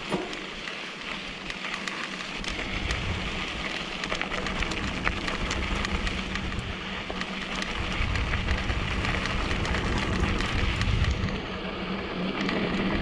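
2014 Giant Trance 3 full-suspension mountain bike riding a rocky dirt trail: tyres crunching over loose gravel, with constant sharp clicks and rattles from stones and the bike. Wind rumbles on the helmet-camera microphone from a couple of seconds in.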